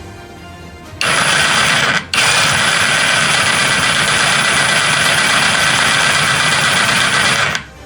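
INGCO CJSLI1008 20V cordless jigsaw running and sawing through wood: a loud, steady motor-and-blade noise that starts about a second in, cuts out briefly near two seconds, then runs on until just before the end.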